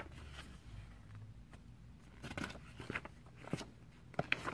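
A paper pamphlet being handled and its pages turned: a few soft rustles and light taps, more of them in the second half.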